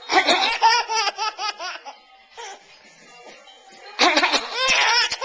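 A baby laughing in two bursts of rapid, high-pitched giggles: one about two seconds long at the start, and another starting about four seconds in.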